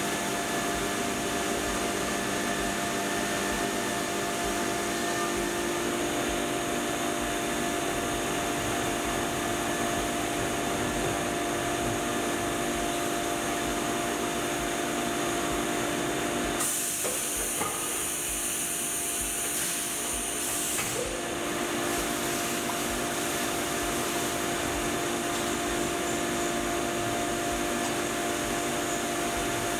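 Haas VF-2SS CNC vertical mill machining a metal wheel disc under flood coolant: a steady spindle and cutting whine over coolant spray. About 17 s in, the sound shifts to a brighter hiss as the machine moves on to drilling with a high-speed-steel drill.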